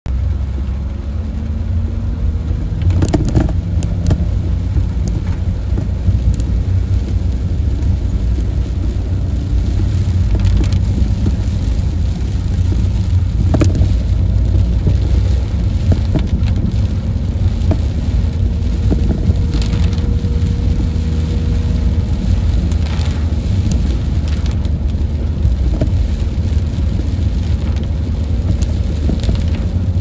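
Car driving through heavy rain, heard from inside the cabin: a steady low rumble of engine and tyres on the wet road, with short sharp clicks every few seconds.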